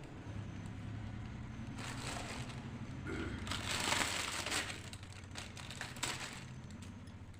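Wrapper of a packet of sweets crinkling and rustling as it is torn open, swelling to its loudest about four seconds in, over a steady low hum.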